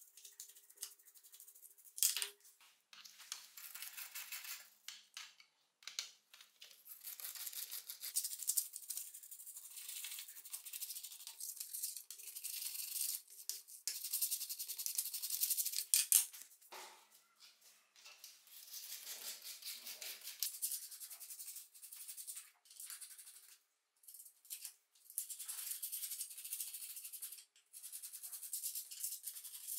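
Small wire brush scrubbing rusted, grime-coated steel parts of a pneumatic nailer in a shallow metal tray: quick, irregular, scratchy strokes in runs, broken by short pauses.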